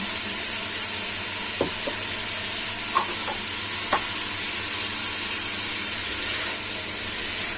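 Stir-fried green beans, mushrooms and smoked beef sizzling steadily in a pan in oyster-sauce liquid, nearly cooked, with a few short knocks of a utensil against the pan as it is stirred.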